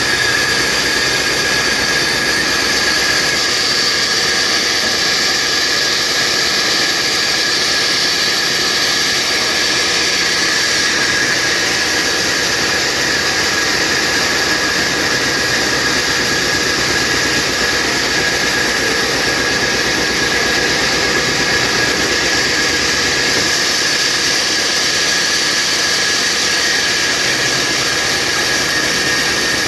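Horizontal band sawmill running steadily: a loud, even machine noise with a steady high whine.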